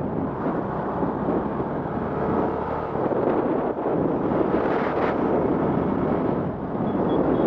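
Wind rushing over the microphone at riding speed, over the steady running of a TVS Star City Plus's 110cc single-cylinder four-stroke engine.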